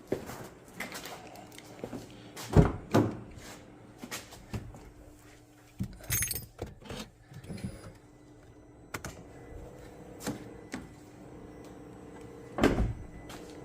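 Scattered knocks, clicks and rustles of someone moving about and handling things around a car, with heavier thumps about two and a half and three seconds in and again near the end.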